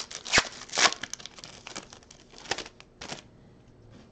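Foil wrapper of a trading-card pack being torn open and crinkled by hand: a series of short crackling rustles that die away a little after three seconds in.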